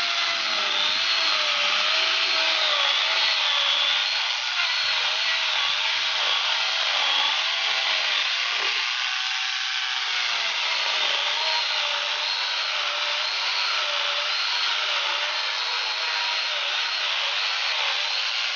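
Electric angle grinder fitted with an 11.5-inch chainsaw bar and chain, sawing crosswise through a wooden beam: a steady, loud motor whine whose pitch wavers up and down as the chain bites into the wood.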